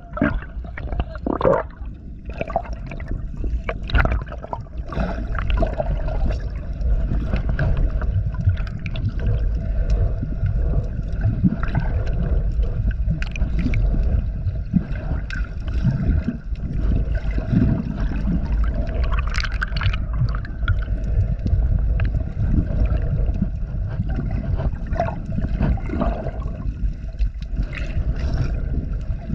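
Underwater sound from a chest-mounted action camera on a snorkeler: a steady low rumble of water moving against the housing, with gurgling, scattered clicks and a faint steady hum underneath.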